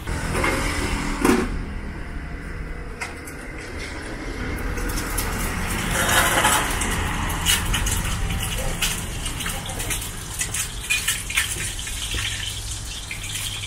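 Metal cookware clattering: a run of quick clinks and scrapes over a steady background of kitchen noise, getting busier about halfway through.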